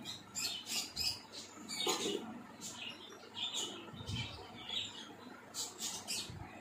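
Raw bone-in mutton pieces set down one by one into an empty aluminium pot: a few soft thumps of meat on the metal and many short sticky clicks from the handled raw meat.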